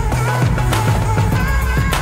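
Pop-style background music with a steady beat of about two deep drum hits a second, a sustained bass line and a melody on top.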